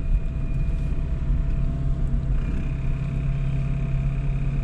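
A 1986 Volvo 245 wagon being driven: steady engine drone over a low road rumble.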